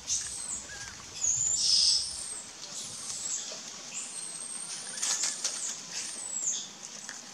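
A series of high, thin whistling calls, each about half a second to a second long, some bending up or down at the ends. The loudest comes about two seconds in, and a few short rustles or scrapes come about five seconds in.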